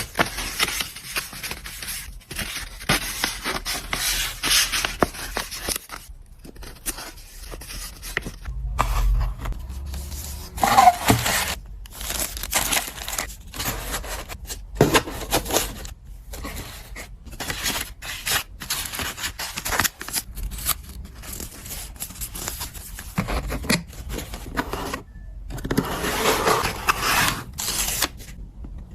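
Hands packing an order: packaging material rustling, scraping and crinkling, in stretches broken by brief pauses, with no music.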